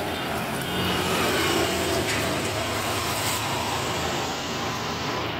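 Steady road traffic noise: a motor vehicle running on the road.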